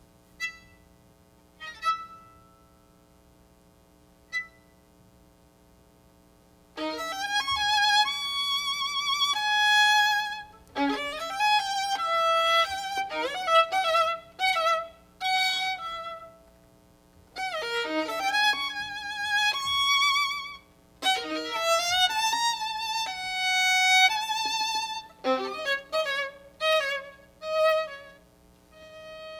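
Violin playing: a few short, isolated notes at first, then from about seven seconds in bowed phrases in a high register with vibrato, broken by short pauses.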